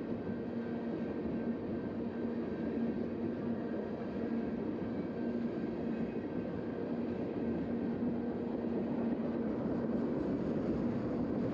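Freight train cars rolling steadily past over a road crossing: a continuous rumble of wheels on rail, with a low steady hum running through it.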